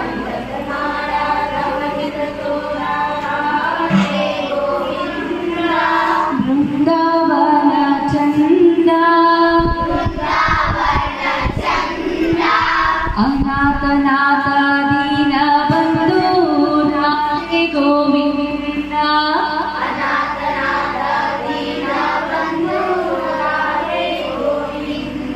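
Female singing of a Hindu devotional bhajan to Govinda: a slow melody with long held notes that slide between pitches.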